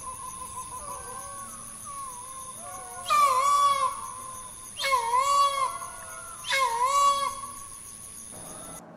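Green peafowl calling loudly three times, each call just under a second long and repeated about every second and a half, over softer calls of another bird and a steady high insect whine. The sound cuts off suddenly near the end.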